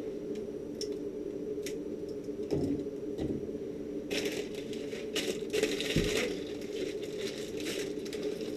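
Crinkling and crushing of packaging, with a few sharp clicks early and a denser stretch of crinkling in the second half, over a steady hum.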